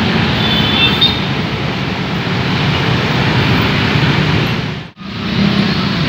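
Busy road traffic crossing a railway level crossing: many motorcycle engines and cars running, with tyre noise. The sound drops out for a moment about five seconds in, then the traffic noise resumes.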